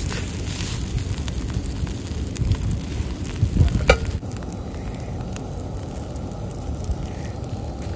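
Floured fish pieces sizzling and crackling in a hot stainless steel skillet as they are turned by hand; the sizzle gets fainter about four seconds in.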